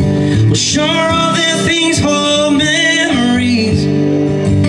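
A man singing a country-style song to his own strummed acoustic guitar. The guitar chords run steadily under a sung line that starts about half a second in and ends near the end.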